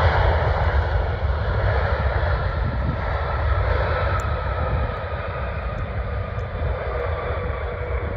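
Jet engines of a DHL widebody cargo jet moving along the runway: a loud, steady roar and rumble with a faint engine whine running through it, slowly fading as the aircraft moves away.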